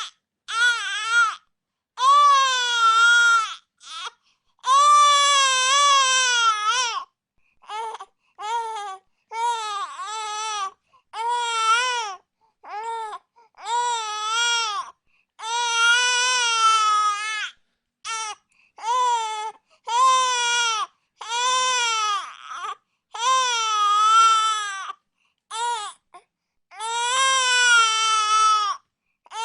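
A baby crying: a long run of high, wavering wails, each lasting from a moment to about two seconds, with short breaths between them.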